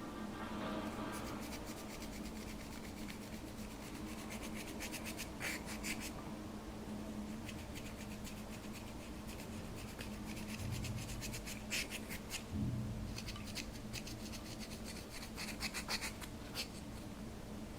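Slime being mixed and kneaded by hand, making rubbing sounds with many quick sticky clicks and small pops that come in clusters.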